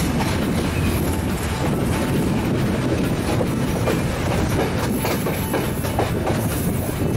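Passenger train running along the track, heard from aboard, with a steady rumble of the carriages and the wheels clicking over rail joints now and then.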